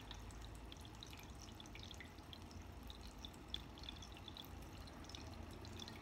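Small tabletop water fountain trickling faintly, with many small, scattered drips.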